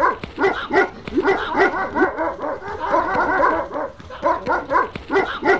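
Several dogs barking and yelping, short high calls overlapping at several a second.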